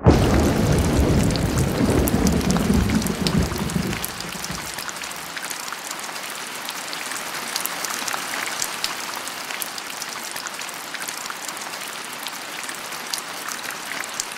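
Rain falling steadily, a hiss with scattered drop ticks, starting abruptly. A deep rumble of thunder comes in with it and dies away about four seconds in.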